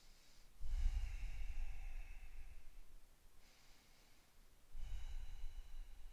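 A woman breathing slowly and deeply: two long, audible exhales about four seconds apart, each preceded by a quieter inhale.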